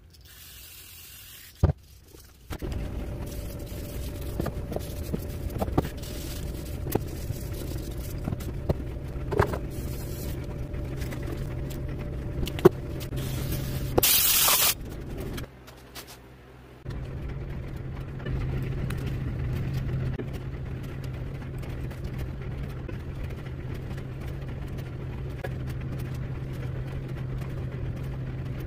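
Steady low machine hum with scattered sharp metal clicks and taps as a piston is handled. About 14 seconds in, a loud burst of hissing air, aimed at a piston, lasts about a second, and the hum drops out briefly after it.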